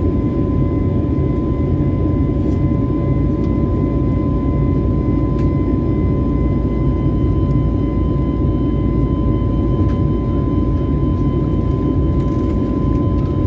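Steady engine and airflow noise inside the cabin of an Airbus A320-family jet airliner in flight: a constant low rumble with two steady hums on top.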